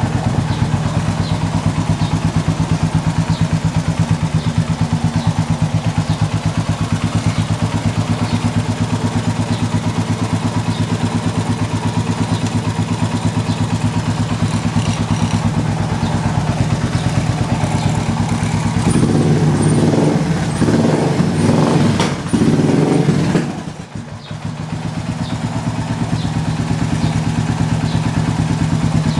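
Suzuki LS650 single-cylinder motorcycle engine idling steadily through a Cherry Bomb muffler. About two-thirds of the way in, the throttle is blipped several times. The engine then sags briefly and settles back to idle.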